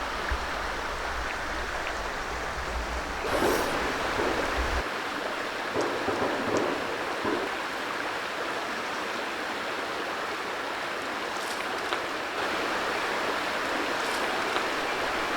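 Steady rush of flowing river water, with a few brief splashes or knocks in the first half. A low rumble under the water sound cuts off abruptly about five seconds in.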